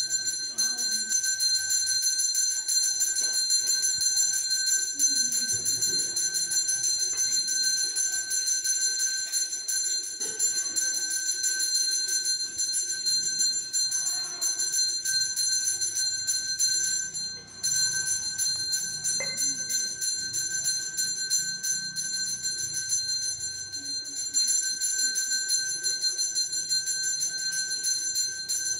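Temple bell ringing continuously with rapid strikes, giving a steady metallic ring. It stops briefly a little past halfway, then resumes.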